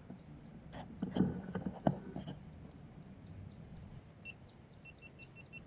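A few sharp clicks and knocks in the first half, over a steady run of high, rapid chirps from a small animal, about five a second. From about two-thirds of the way in, a second, lower chirping joins at the same pace.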